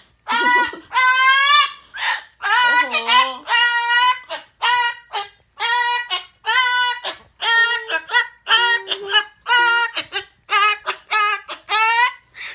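Umbrella cockatoo singing a run of short, wordless, pitched syllables, about two a second, in a singsong voice.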